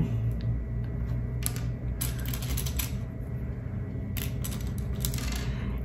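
Small sewing buttons clicking and clattering against one another and the tin as they are picked through by hand: an irregular scatter of light clicks.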